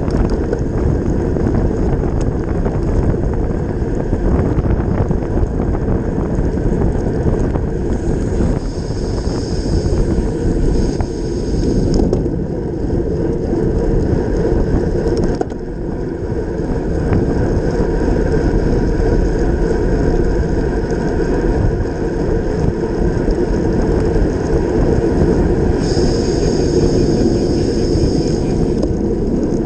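Wind rushing over the microphone of a bike-mounted camera, mixed with the tyre and road noise of a road bike riding fast on wet tarmac. A higher hiss comes in twice for a few seconds.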